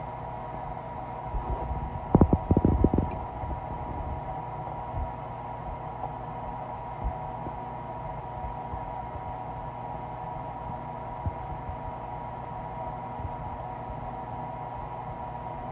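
A human stomach gurgling and growling on an empty stomach, picked up close to the belly. A short run of low gurgles comes about two seconds in, then occasional faint pops, over a steady hum.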